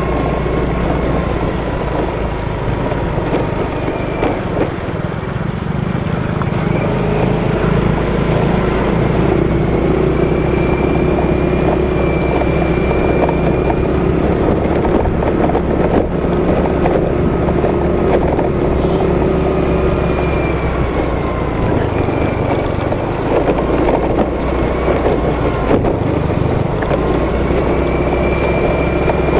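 Motorcycle engine running steadily while riding, with wind noise on the camera microphone; the engine pitch drifts gently up and down with the throttle.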